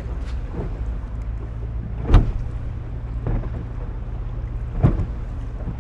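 A boat's engine running with a steady low hum, over the noise of the water, with two sharp knocks about two seconds in and again near the end.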